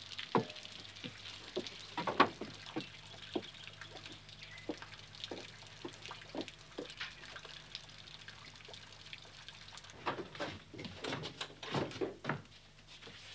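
Water dripping in irregular single drops and light taps, coming thicker near the end.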